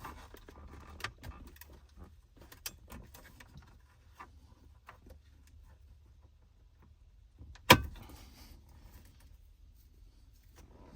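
Light clicks and rattles of plastic wiring connectors being handled and unplugged, with one sharp click about three quarters of the way through.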